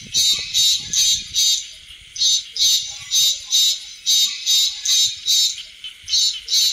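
Recorded call of the giant water bug (Lethocerus indicus) played on a loop through a Bluetooth speaker as a lure. It is a high, buzzy chirp repeated about two and a half times a second, in runs of four or five with short pauses.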